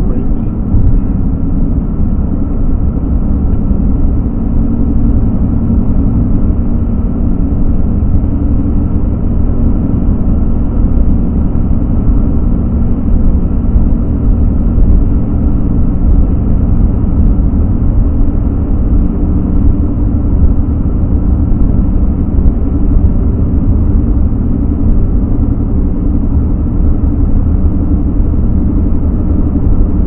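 Car driving at steady speed on a paved road, heard from inside the cabin: a steady low rumble of engine and tyre noise.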